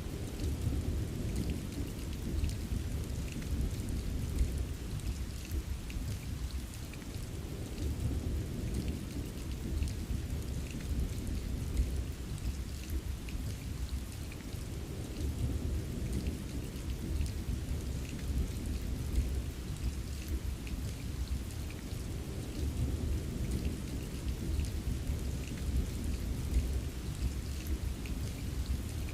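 Steady rain with scattered drops pattering, under a deep rolling thunder rumble that swells and eases every several seconds.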